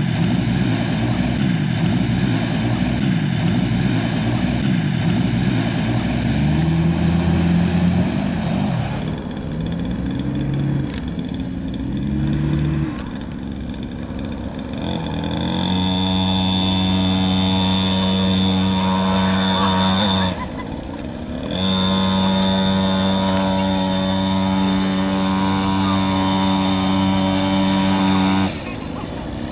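Off-road SUV engine revving hard and unevenly as it drives through mud, rising and falling in pitch. From about halfway the sound turns to a steady, high-pitched engine drone that breaks off twice for about a second.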